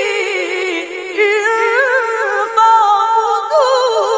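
A boy's voice reciting the Quran in melodic tajweed style, unaccompanied, drawing out long vowels with wavering ornaments, with a short breath about a second in.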